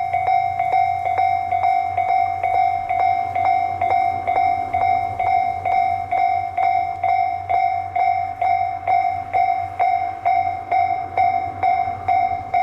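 Japanese level-crossing warning bell ringing in even strokes, about two and a half a second, as the DE10 diesel locomotive approaches. The low rumble of the locomotive runs underneath.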